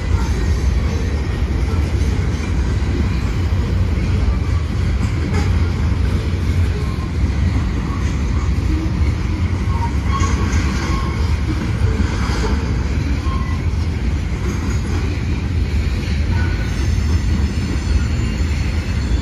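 Freight cars of a manifest train (boxcars, covered hoppers, tank cars) rolling past: a steady rumble of steel wheels on the rails. Brief thin wheel squeals come in about ten to twelve seconds in and again near the end.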